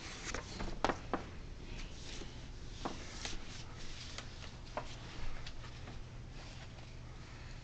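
Scattered light clicks and rustles of small objects being handled, over a steady low room hum, the loudest few about a second in.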